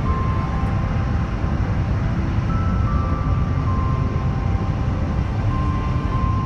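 Steady low rumble of a moving vehicle, with a quiet falling three-note melody that repeats every few seconds.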